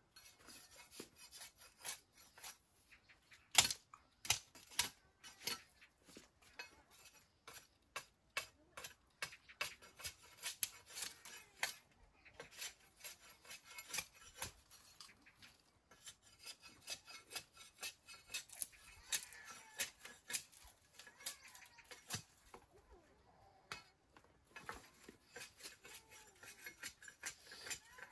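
A machete hacking and scraping along a thin bamboo pole: a long run of quick, irregular sharp knocks and scrapes. The loudest knock comes about three and a half seconds in.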